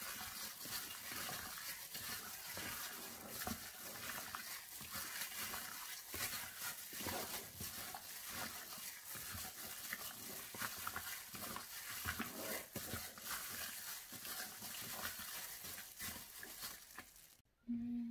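A plastic-gloved hand squishing and turning raw chicken wings in a wet marinade in a bowl: irregular squelching and glove crinkling. It stops abruptly near the end.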